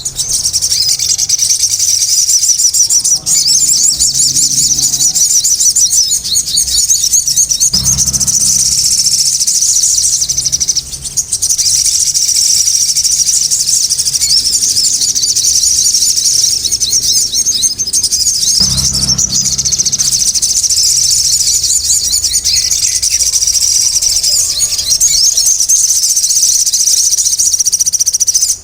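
Sogon bird chattering nonstop: a dense stream of rapid, high-pitched chirps and trills, broken only by a few brief pauses.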